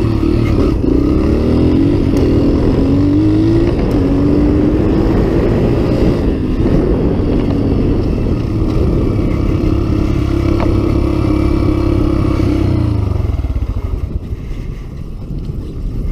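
Small vehicle engine running as it is driven across rough pasture, its pitch climbing over the first few seconds as it speeds up, then holding steady before easing off about thirteen seconds in.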